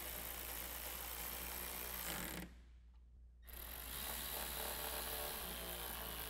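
Milwaukee cordless electric ratchet running in two spells, driving 10 mm headlight mounting bolts tight: a steady motor whir, a pause of about a second just past the two-second mark, then a second run on the next bolt.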